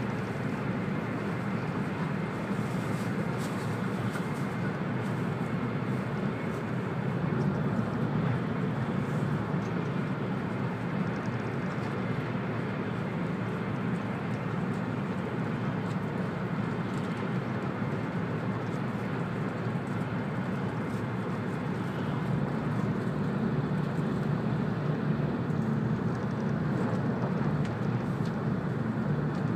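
Steady running noise heard inside the cabin of an E2-series Shinkansen at speed: an even low drone with a hiss of air and rail above it, unchanging throughout.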